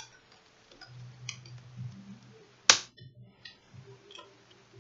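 Plastic screen bezel of a Dell laptop being pried loose by hand: faint ticks of the plastic, and one sharp snap about two and a half seconds in as a retaining clip lets go.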